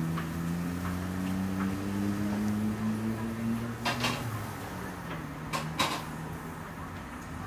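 Charcoal rotisserie machinery turning rows of chicken spits: a steady hum that fades out about four seconds in, with a few sharp metal clanks around four and six seconds in.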